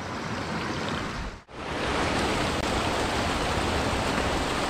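A small mountain headwater stream rushing over rocks and low cascades, a steady even rush of water. It cuts out for a moment about a second and a half in, then comes back louder and unchanging.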